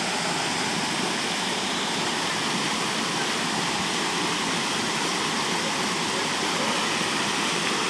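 Waterfall rushing steadily, a loud, even roar of falling water.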